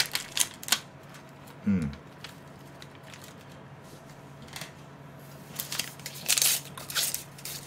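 Plastic sealing film crinkling and crackling as it is peeled off a takeout food container and crumpled by hand. It comes in a cluster of crackles at the start and again about five and a half seconds in.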